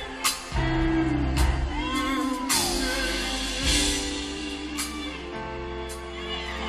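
Live R&B band playing through a hall PA, recorded on a phone: a bass guitar holds long low notes that change every second or two, under drums with several cymbal crashes and keyboards.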